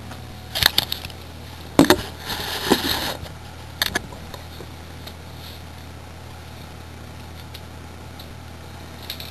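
Handheld camera being moved and set down on a wooden floor: a few knocks and a rustling scrape in the first four seconds, then only a steady low hum of room and camera noise.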